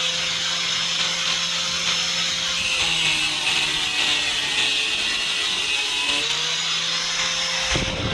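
Einhell TC-AG 125 850 W angle grinder running with a metal cutting disc, cutting steel bar with a steady high grinding hiss. Its motor pitch dips briefly twice under load. A low rumble comes in near the end.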